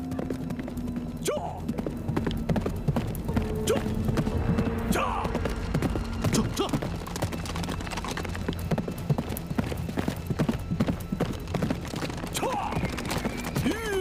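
Several horses galloping, a dense, uneven clatter of hoofbeats.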